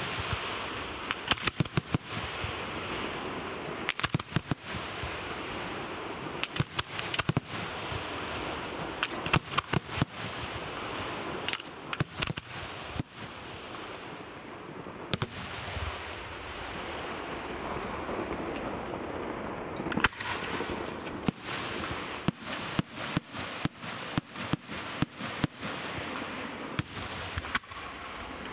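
Aerial firework shells bursting in clusters of sharp bangs, one after another, over a steady hiss. Near the end the bangs come as a fast, even run, about two a second.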